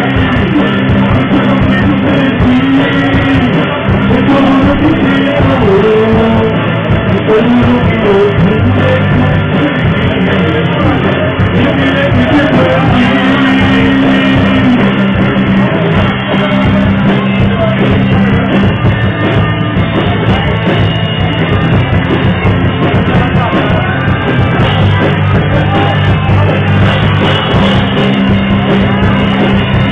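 Rock band playing loudly live, with a singer's voice over the band.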